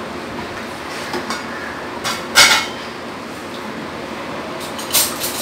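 Kitchen utensils and dishes clinking as ingredients are handled, with a few light clicks and two louder short clatters, one about two and a half seconds in and one near the end, over steady background noise.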